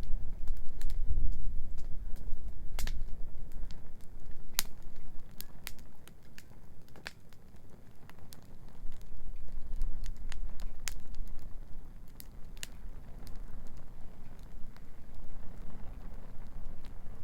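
Wood bonfire crackling, with sharp irregular pops of varied loudness over a low rumbling background.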